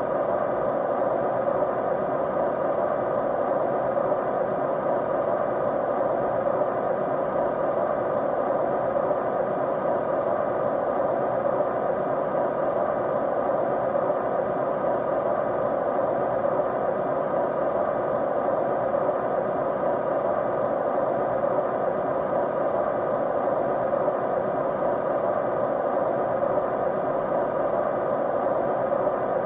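Steady white noise: an even, unchanging rush, strongest in the middle range, with faint steady hum tones running through it.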